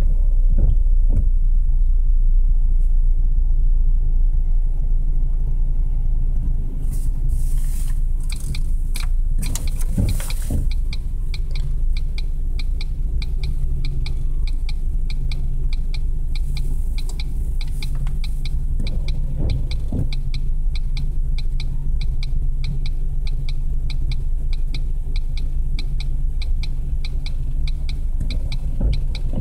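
Steady low rumble of a Norfolk Southern coal train's hopper cars rolling past, heard from inside a car. From about seven seconds in, a rapid, even ticking runs alongside the rumble.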